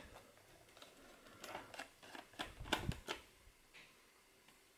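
Faint clicks and scrapes of a small screwdriver turning out the single screw of a laptop's hard drive hatch, mostly in two short clusters between about one and a half and three seconds in.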